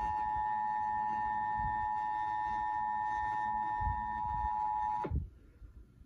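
Emergency Alert System attention signal, the steady two-tone alert tone of a Required Monthly Test, heard through a television speaker, cutting off suddenly about five seconds in.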